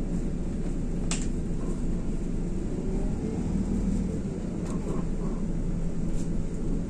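Cabin noise aboard an IVECO Crossway LE bus: a steady low drone from its Iveco Cursor 9 diesel engine and the running gear, with three short sharp clicks, about a second in, near the middle and near the end.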